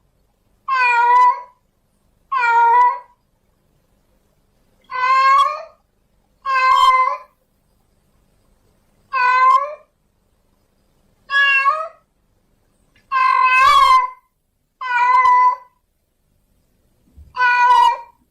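Female domestic cat in heat calling for a mate: a series of about nine loud meows, each under a second long, one every second or two.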